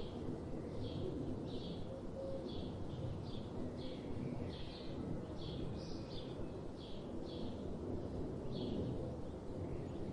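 A bird chirping, giving short high notes over and over, about two a second, over a steady low rumble of background noise.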